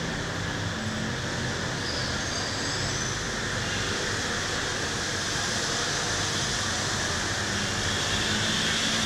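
A steady rumbling noise with a faint low hum underneath, rising slightly near the end.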